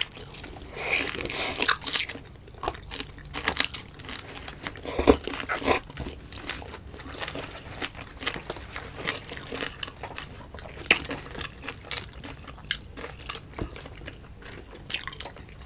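A person eating close to the microphone: biting and chewing food, with many short, irregular crunchy clicks.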